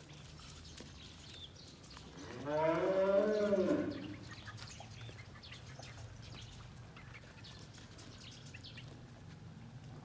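A farm animal calls once: one long call of about a second and a half, starting a couple of seconds in, its pitch rising and then falling.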